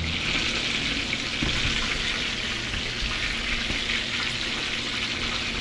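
Whole starch-coated scorpionfish deep-frying in 160 °C oil: a dense, steady sizzle and crackle of bubbling oil around the fish.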